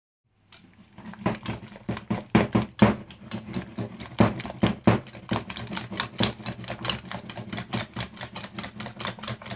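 Wire whisk beating thick chocolate cream in a small stainless-steel bowl. The wires click rapidly and unevenly against the metal sides, starting about half a second in.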